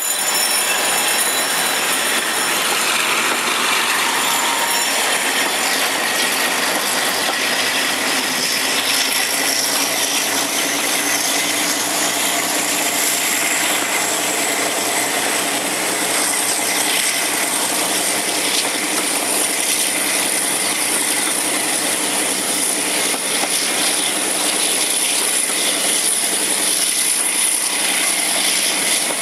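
A Class 52 'Western' diesel-hydraulic locomotive hauling a passenger train, heard from an open coach window with steady wheel noise and air rush. A high thin whine rises steadily in pitch over the first twenty seconds or so, then holds.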